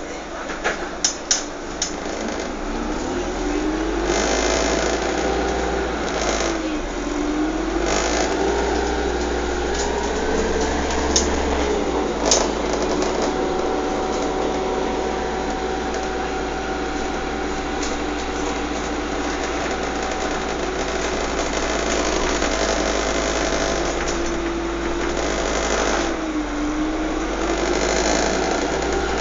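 A vehicle's motor whining, its pitch climbing and dipping several times, over a steady rumble; a few sharp clicks come in the first two seconds and one more about twelve seconds in.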